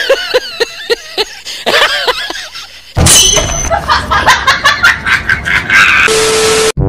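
A young man laughing and talking teasingly, much louder from about halfway, with a short steady tone and hiss near the end.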